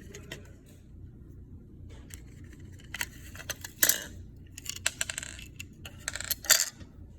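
Clicks and rattles of small hard objects being handled, in clusters starting about two seconds in, with the sharpest knocks near the middle and near the end.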